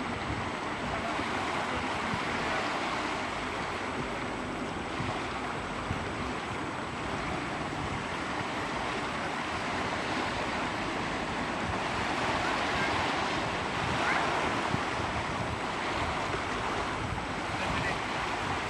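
Steady wash of lagoon waves and water around people standing in the shallows, with wind rumbling on the camcorder microphone.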